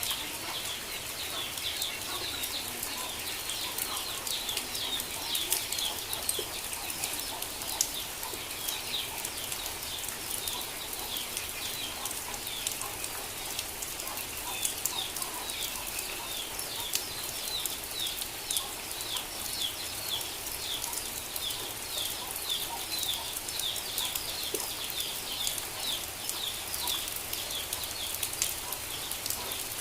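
Chicks peeping continuously in a rapid run of short, high cheeps, over the steady hiss and patter of rain.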